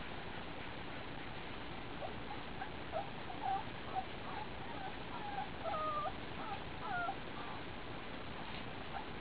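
Young German Shepherd puppies whimpering: a string of short, high squeaks and whines from about two to seven seconds in, over a steady hiss.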